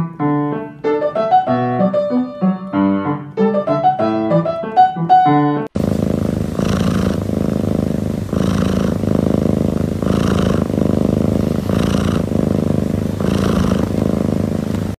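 Piano music, then a sudden cut about six seconds in to a cat purring, the purr swelling with each breath about every second and a half.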